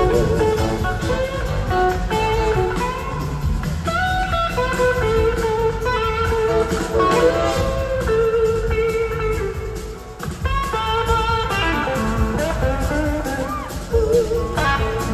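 Blues-rock band playing live, led by an electric guitar line with bent, wavering notes over drums, bass and keyboards.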